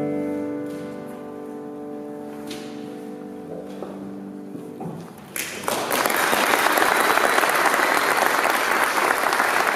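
A grand piano's final chord rings and slowly fades over the first few seconds. About five seconds in, audience applause breaks out and becomes the loudest sound.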